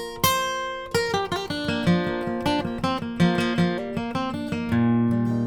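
Acoustic guitar playing an instrumental introduction: separately picked notes ring over one another, and a strong low bass note comes in near the end and rings on.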